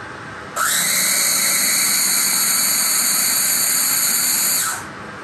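Mini food processor running for about four seconds with a steady high motor whine, starting abruptly about half a second in and cutting off near the end, as it blends tartar sauce.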